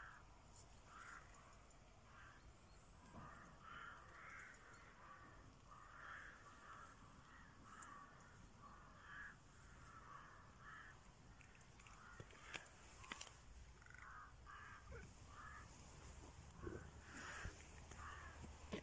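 Faint, short, harsh bird calls repeating throughout, a few to the second at times, with a few sharp clicks in the second half.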